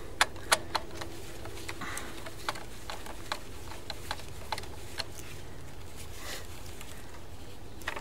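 Small sharp clicks and ticks of pliers and wire ends working at an irrigation controller's screw terminals. A few come close together at first, then they are scattered every half second or so over a steady low hum.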